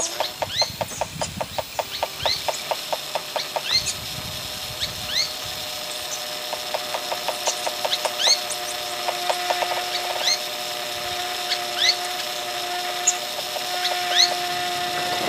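Experimental electronic music: a rapid train of clicks, about eight a second, that stops about three and a half seconds in, over held steady tones, with short rising squeaky chirps recurring throughout.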